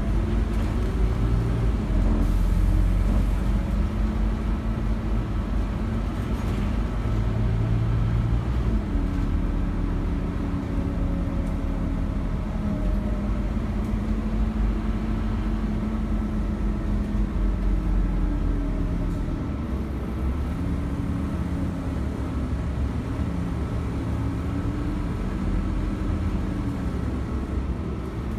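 Scania OmniCity bus's diesel engine and drivetrain heard from inside the passenger saloon while driving, the engine note rising and falling with speed. The deep rumble eases a little about two-thirds of the way through.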